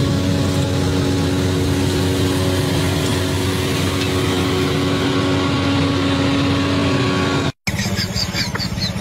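Engine of a self-propelled orchard sweeper running steadily under load while its rotating brush sweeps the orchard floor. It breaks off abruptly about a second and a half before the end.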